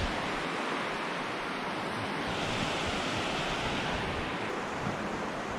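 Steady rush of ocean surf washing onto the beach, swelling slightly in the middle.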